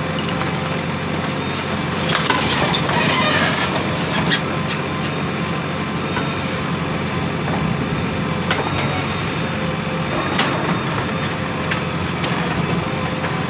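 JCB 3DX Plus backhoe loader's diesel engine running steadily under work, with scattered knocks and clatter, most of them between about two and four and a half seconds in.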